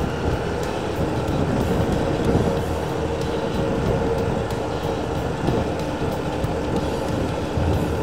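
Motorcycle running steadily at road speed, heard from the rider's own bike, with a continuous rough rumble from the tyres on a block-paved road and wind noise on the microphone.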